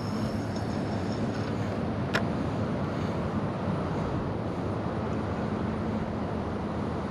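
Steady low outdoor background rumble with a faint hum, and one brief click about two seconds in.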